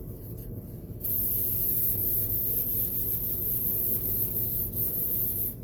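Aerosol cleaning spray hissing in one continuous spray of about four and a half seconds, starting about a second in and cutting off sharply near the end.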